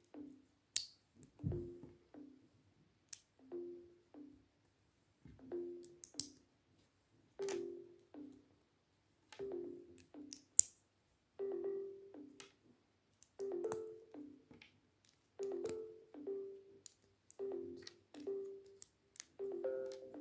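Background music: soft, plucked-sounding notes that fade quickly, in a short phrase repeating about every two seconds. A few sharp clicks of plastic Lego bricks being handled come through, the loudest about halfway through.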